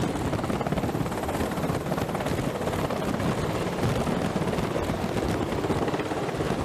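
MH-60 Seahawk helicopter in flight, its rotors beating in a steady, rapid chop.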